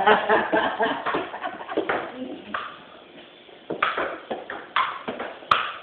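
Table tennis ball clicking off the paddles and table in a rally, a sharp hit about once a second through the second half. Voices are heard in the first couple of seconds.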